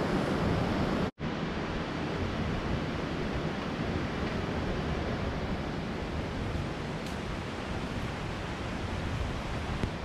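Steady rush of flowing water in a mountain stream. It cuts out for an instant about a second in, then carries on unchanged.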